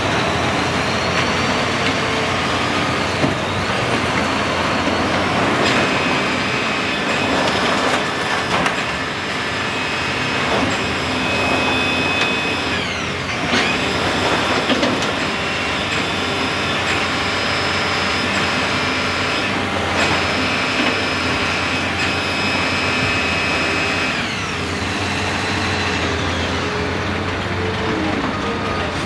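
Caterpillar excavator demolishing a building: its diesel engine runs steadily while the grapple tears and crushes debris, with scattered crashes and high metal squeals and scrapes.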